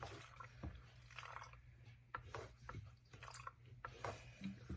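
A small splash of gasoline poured into a chainsaw's fuel tank, faint dripping and trickling with light clicks of handling the saw and can.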